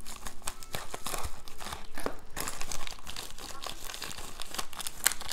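Shiny plastic bubble mailer crinkling and crackling in irregular bursts as hands handle it and pull out its contents.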